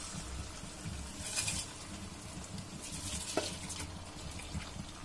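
Metal spatula stirring soaked rice into mutton masala in a metal pot: a few soft scrapes over a faint sizzle, with one light knock of the spatula on the pot about three and a half seconds in.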